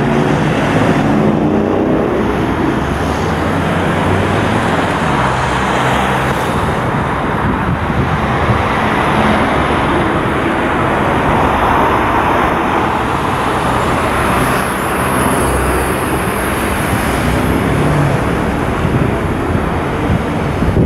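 Street traffic: cars passing on the road, a steady wash of engine and tyre noise that swells as vehicles go by.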